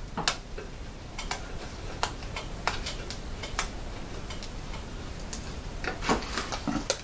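Fingernails picking and tapping at a warranty sticker on the steel casing of a VFD enclosure: irregular sharp clicks, coming in a quicker run near the end.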